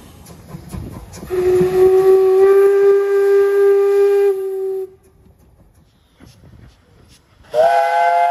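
A steam locomotive whistle blows one steady note for about three and a half seconds. After a short gap, a chime whistle starts near the end, sounding several notes together as a chord.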